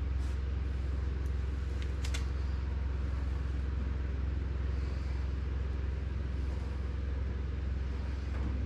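Steady low mechanical hum, with a few faint clicks of handling near the start.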